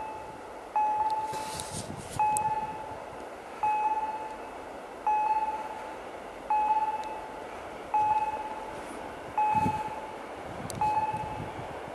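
Level crossing warning bell sounding a single clear ding about every second and a half, eight times, each fading before the next, as a train approaches.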